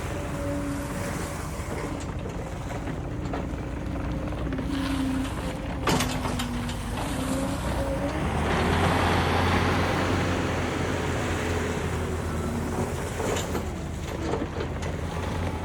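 John Deere 317G skid steer running under operation, its diesel engine note shifting in pitch as it works. There is a sharp knock about six seconds in, and from about eight seconds in the machine runs louder and heavier.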